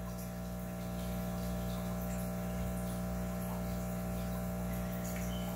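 Steady low electric hum from running aquarium equipment such as air pumps or a filter pump, with a faint wash of moving water.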